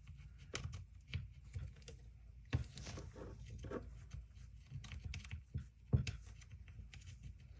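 Scattered light clicks and knocks of small parts being handled and fitted into a cordless impact driver's housing, with two louder knocks about two and a half and six seconds in.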